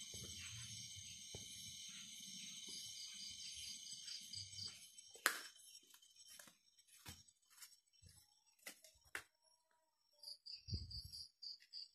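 Faint night insect chorus, crickets trilling in steady pulses, cut off by a sharp click about halfway through. After that come scattered light clicks and taps, a brief return of the trilling near the end, and a low thump.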